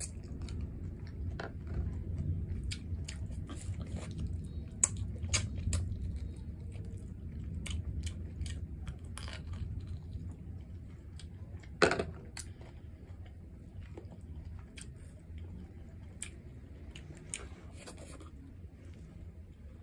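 Close-miked chewing and wet mouth clicks of a person eating rice and stew by hand, with one louder click about twelve seconds in.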